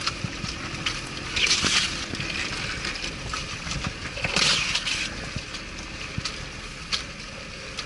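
Off-road vehicle's engine running as it drives over a rough track, with scattered knocks and two louder rushing bursts, about one and a half and four and a half seconds in.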